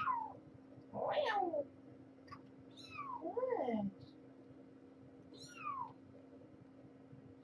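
Four-week-old kittens mewing: several short, high mews that fall in pitch, and two lower, longer meows, about one second in and about three and a half seconds in.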